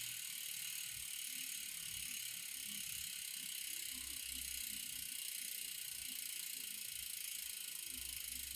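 Xenium AM-82 bicycle hub's freewheel ratchet buzzing steadily as the wheel spins freely, with a few low thumps underneath.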